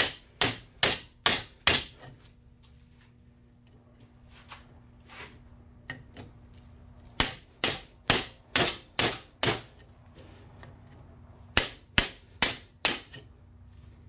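Hammer blows on a pointed steel round-bar punch, knocking cut copper windings out of an electric motor's stator. The strikes come in three quick runs: about five in the first two seconds, about seven starting some seven seconds in, and four or five more near the end.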